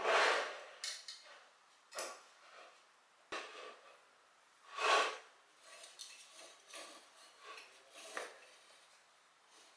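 Dishes and kitchen utensils clinking and clattering as they are handled and set down: a run of separate knocks, the loudest right at the start and about five seconds in, with lighter clinks between.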